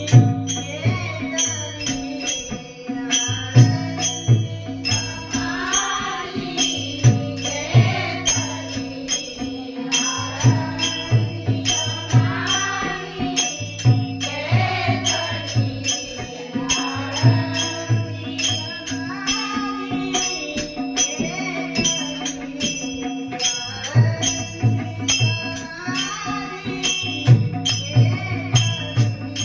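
A woman singing a Marathi devotional abhang in a bhajan, her voice winding through a melodic line over a steady held drone. Drum beats and small hand cymbals keep a steady rhythm.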